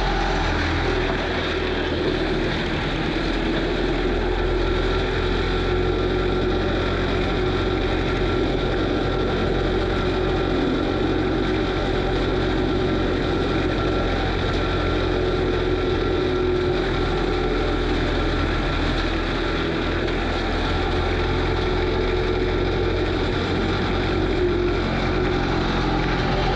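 Kubota SVL95 compact track loader's diesel engine running steadily under load, driving an FAE forestry mulcher, heard close up from on top of the machine.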